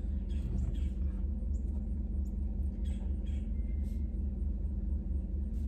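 Steady low drone of a car's cabin with the engine running, with a few faint paper rustles and pen scratches from filling out flyers.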